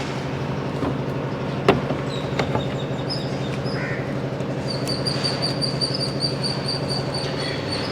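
Steady low machine hum, with a single sharp click about two seconds in and a run of quick, evenly repeated high-pitched chirps through the second half.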